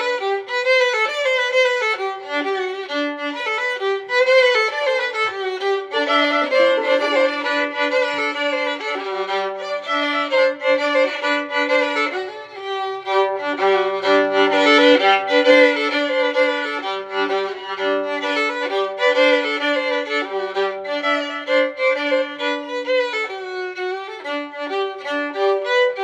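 Instrumental background music: a melody with vibrato over held lower notes.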